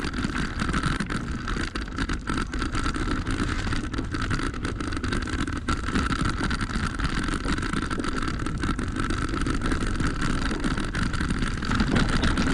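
Fantic Integra electric mountain bike riding a rocky singletrack: tyres rumbling over stones, with frequent rattles and knocks from the bike, and a steady high whine throughout.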